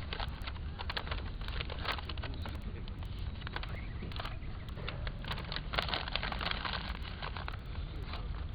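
Wood fire crackling, with irregular sharp pops over a steady low rumble of wind on the microphone.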